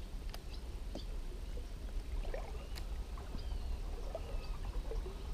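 Water gurgling and lapping around a float tube as it moves slowly across the water, with a few sharp clicks. Small birds chirp faintly in the background.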